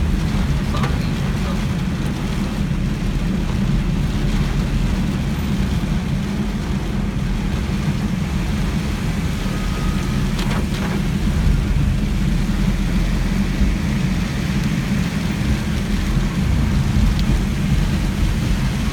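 Heavy rain beating on a car's roof and windscreen, heard inside the cabin as a steady low drumming rumble, mixed with the car's own running noise.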